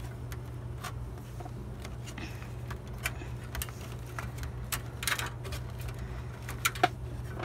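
Ribbon cables and plastic connectors rustling and clicking as they are pulled and pushed around inside an old desktop computer case, with scattered sharp clicks, the sharpest near the end, over a steady low hum.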